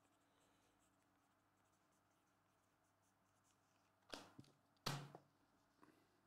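Near silence with the faint scratch of a felt-tip marker writing on a paper slip. About four seconds in come two brief, sharp handling sounds a little under a second apart as the slip is picked up and slid across the mat.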